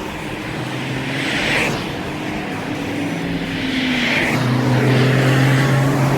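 Cars passing on the road, two swelling whooshes of tyre noise about one and a half and four seconds in, over a steady engine drone that grows louder about four and a half seconds in.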